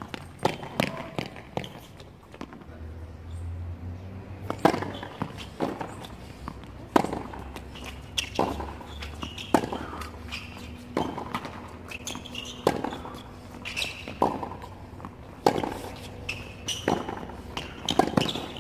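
Tennis rally on a hard court: sharp pops of racket strings striking the ball, mixed with the ball bouncing on the court, roughly one every second.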